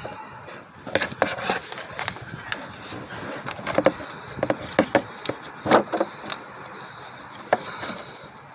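Irregular clicks, taps and scrapes of hand tools and metal as a thermostat housing bolt is threaded in.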